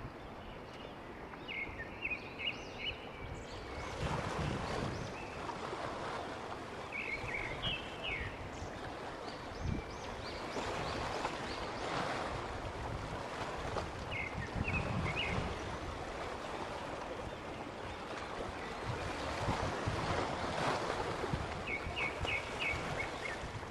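Sea waves washing and breaking on a beach and rocks, a steady rush that swells and ebbs every few seconds, with low thumps of wind on the microphone. Short runs of high chirps come and go four times.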